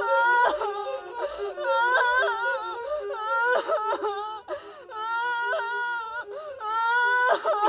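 A woman wailing and sobbing in high, wavering cries that break off and start again about once a second.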